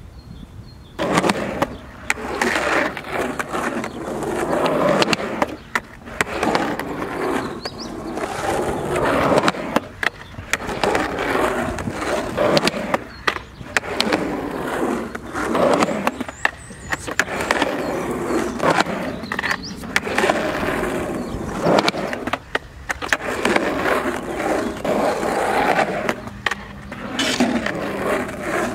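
Skateboard wheels rolling over rough asphalt and concrete, the rumble swelling and fading with each run, broken by many sharp clacks of the board striking the ground during trick attempts. The rolling starts about a second in.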